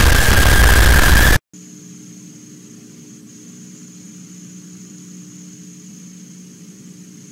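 Loud, harsh, distorted noise with a steady high whistle through it, cutting off abruptly about a second and a half in. After a brief silence comes a faint steady hum with a thin high whine, the background noise of an old videotape recording.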